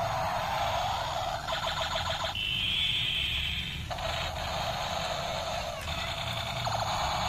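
Battery-powered toy attack helicopter running with its rotors spinning, its speaker playing electronic alarm-like sound effects. There is rapid pulsing about a second and a half in and again near the end, and a steady high tone from about two and a half seconds in.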